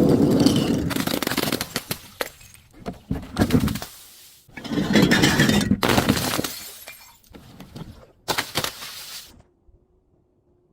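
Glass bottles shattering: several sharp breaks, the heaviest near the start, in the middle and near the end, each followed by crunching and tinkling of broken glass.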